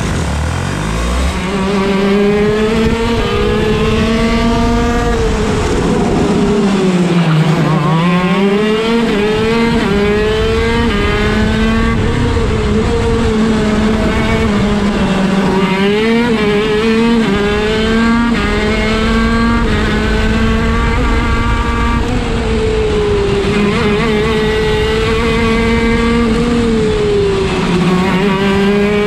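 TM Racing KZ-R1 125cc two-stroke shifter-kart engine running hard, heard onboard. Its pitch rises and falls with speed, dropping deepest about seven seconds in, with quick short steps as gears change.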